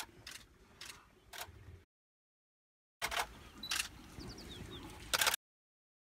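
A few sharp clicks and snaps in two short bursts, the loudest near the end, with faint high chirps in the middle of the second burst. The sound cuts out completely in between for about a second.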